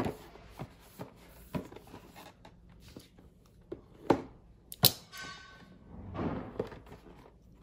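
Cardboard box and a utility knife being handled on a desk: scattered light knocks and taps, two sharp clicks about four and five seconds in, then short scraping rustles.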